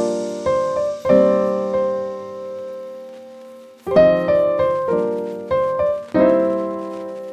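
Solo piano background music: slow chords struck and left to ring and fade, with a quieter lull in the middle before new chords come in.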